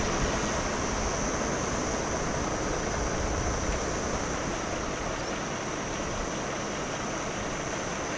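Steady rushing outdoor background noise, even and without distinct events, with a thin steady high-pitched hiss above it.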